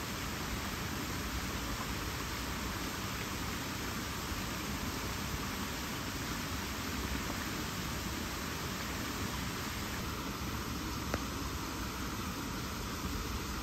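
A steady, even hiss with a single faint click about eleven seconds in.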